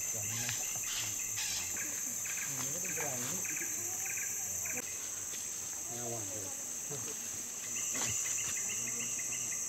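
Steady high-pitched drone of rainforest insects, swelling slightly near the end, with low human voices murmuring quietly underneath now and then.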